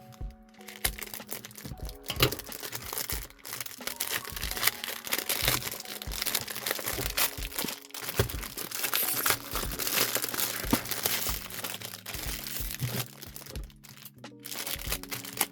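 Plastic wrapping being torn and peeled off a CD jewel case: a dense, irregular crackle that runs on without pause, over light background music.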